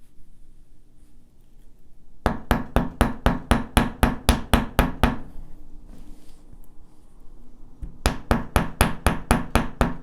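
Small hammer tapping a wire S-clasp in quick, even strokes, about five a second, flattening and work-hardening the wire. There is a run of about fifteen strikes, a pause of a few seconds, then another run of about ten.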